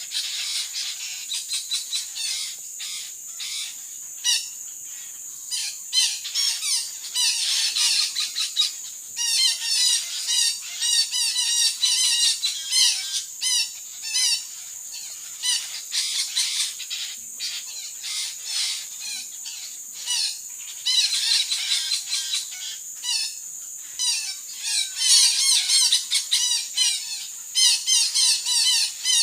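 Parakeets giving many short, harsh squawking calls in repeated bouts, densest about 7 to 14 seconds in and again near the end, over a steady high hum.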